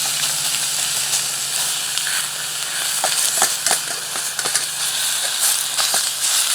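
Ground deer meat frying in a hot pan: a steady sizzling hiss with scattered pops and crackles.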